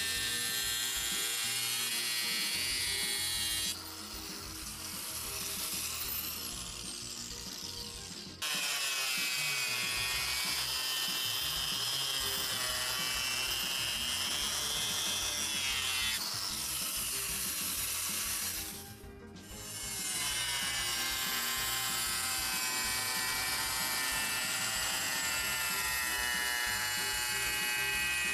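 Angle grinder with a Montolit diamond profiling wheel grinding the edge of a stone slab: a steady high motor whine over abrasive grinding, dropping in level for a few seconds a couple of times.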